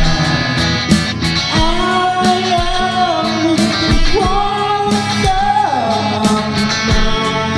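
Original rock track with drums and guitar backing, under a lead melody that bends and slides in pitch.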